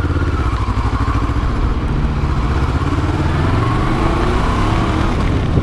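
Kawasaki ER6n's parallel-twin engine running as the bike rides through slow traffic, its pitch rising and falling gently with the throttle. A heavy low wind rumble on the helmet microphone sits under it.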